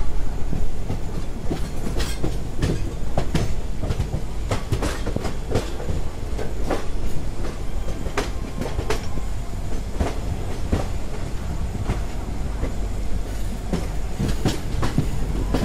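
Passenger train wheels clattering over rail joints and points, heard from the doorway of the moving coach. Irregular sharp clicks sound over a steady low rumble.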